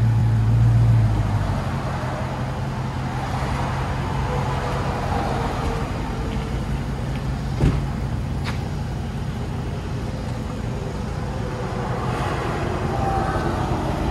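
Dodge Charger Scat Pack's 6.4-litre 392 HEMI V8 through Dynomax Race Bullet mufflers, running at low speed with a deep, steady exhaust note as the car creeps out of a parking lot. The note is louder for the first second or so, then settles. Two short clicks come a little past halfway.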